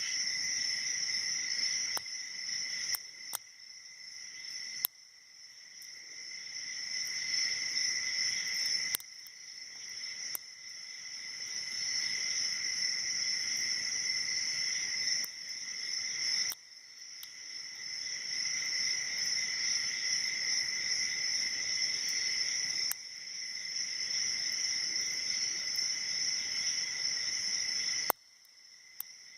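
A steady, high chirring drone like crickets or other night insects, with a few sharp clicks from a hook pick and tension wrench working the pins of a six-pin padlock core.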